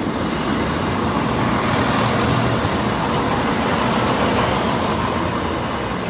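East Midlands Railway Class 170 Turbostar diesel multiple unit passing close by at low speed over a level crossing: its underfloor diesel engines and wheels on the rails make a loud, steady noise.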